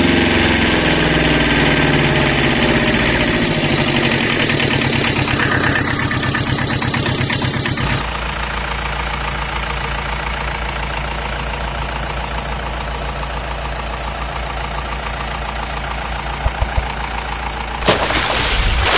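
Engine sound effect of a vehicle idling and running steadily. The sound changes abruptly about eight seconds in, and a brief louder noise comes near the end.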